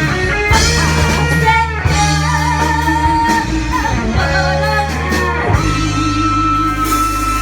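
A voice singing a Mandarin pop song over instrumental backing, with one long held note from about halfway through.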